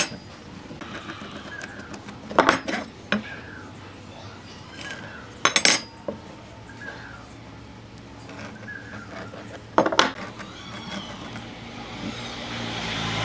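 Four sharp clinks and knocks a few seconds apart as a metal speed square and a wooden block are set down and shifted on a workbench. A low noisy swell builds near the end.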